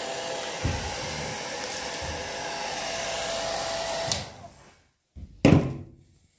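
Hand-held hair dryer blowing steadily with a steady whine, with a few low thuds of handling, switched off about four seconds in and winding down. About a second later comes one short, loud knock, the loudest sound.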